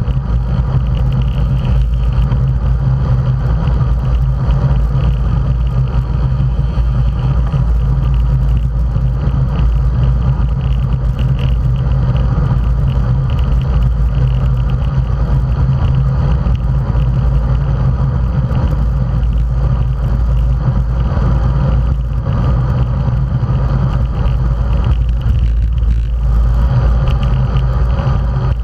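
Steady wind rush and road rumble on a bike-mounted camera riding at speed in a road-race peloton, a loud, unbroken low rumble with the hiss of tyres on asphalt.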